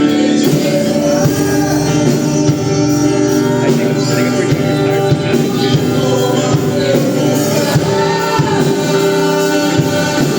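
Live worship music: singing over sustained band chords with guitar, steady throughout.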